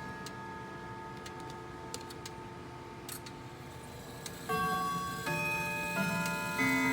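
Grandfather clock ticking while earlier chime notes fade away. About four and a half seconds in, a new run of chime notes starts, struck one after another and left ringing.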